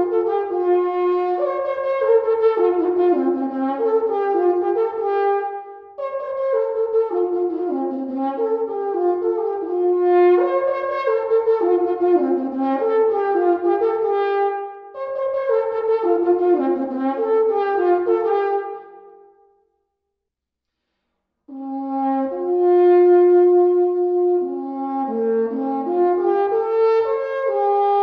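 Aphorn, a long horn blown through a metal mouthpiece, playing a slow melody of held notes, with several notes sounding at once. It plays in phrases of a few seconds, fades out about two-thirds of the way through, and after a couple of seconds of silence comes back in with a new phrase.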